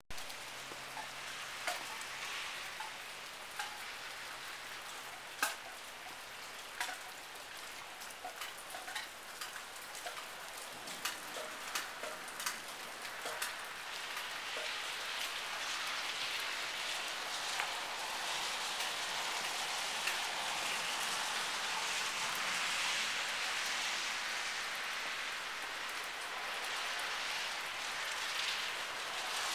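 Rain falling in a storm, at first as separate drops tapping close by, then thickening into a steady, louder hiss of rain from about halfway through.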